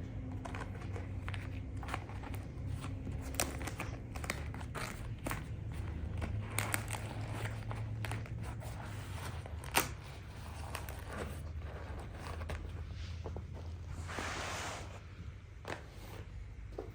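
Irregular handling noises: crinkling, scraping and sharp clicks over a steady low hum, with a brief rustle near the end.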